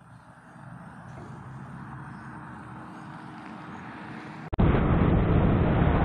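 A faint low hum grows slowly louder. About four and a half seconds in, it gives way abruptly to loud, steady rushing wind and motorcycle noise on a riding camera.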